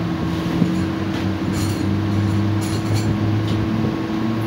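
Steady machine hum with a low vehicle-engine drone rising and falling, and a few light clicks as a motorcycle's spark plug cap is worked loose by hand.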